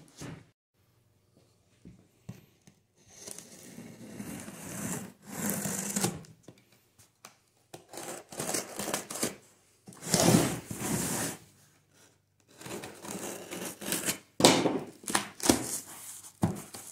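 Packing tape being ripped off a cardboard shipping box and its flaps pulled open: a string of tearing and rustling noises with short pauses between them.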